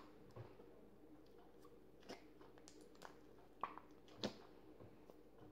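Faint sticky slime squishing and clicking as it is stretched and pulled out of a small cup by hand: a few soft, separate clicks, the two loudest a little over half a second apart later on.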